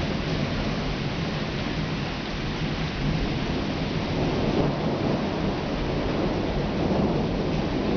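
Thunderstorm: steady rain falling, with a low, continuous rumble of thunder underneath and no sharp crack.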